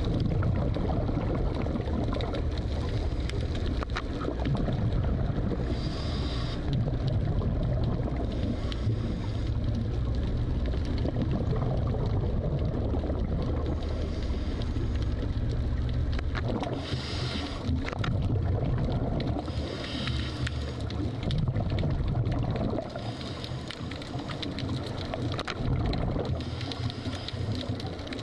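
Underwater recording from a scuba dive: a steady low rumble of water, with a diver's regulator hissing and exhaled bubbles gurgling every few seconds.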